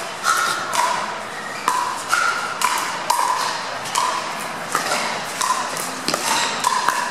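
Pickleball paddles striking hard plastic balls: about a dozen sharp, pinging pops at irregular intervals, each with a short ring.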